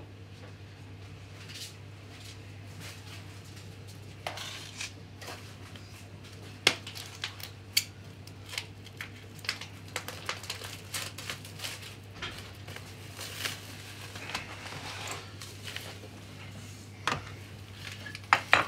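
Kitchen clatter: irregular knocks and clicks of items being picked up and set down on a worktop, over a steady low hum.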